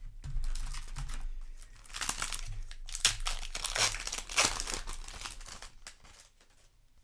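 Crinkling plastic wrapping being handled, in a short stretch of rustling and then a longer, louder one with a few sharp crackles, fading out near the end.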